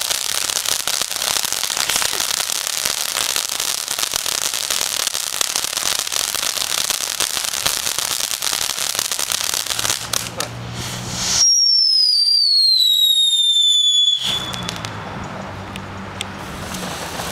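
Ground fountain firework spraying sparks with a dense crackling hiss for about ten seconds. Then, after a brief drop, a loud whistle that slides down in pitch for about three seconds.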